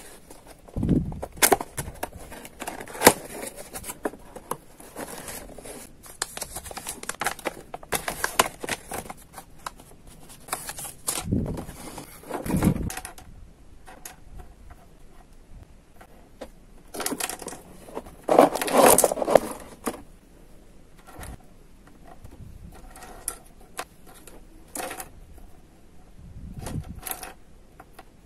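A cardboard box being opened and handled, then small hollow plastic toy chairs being picked up, knocked together and set down on a table, with many light irregular clicks, rustles and scrapes. There are two louder spells of clatter, about halfway and about two-thirds of the way through.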